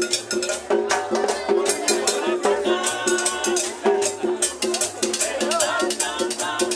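A live street band playing dance music: an accordion carries the melody over drums and a fast, even rattling percussion beat.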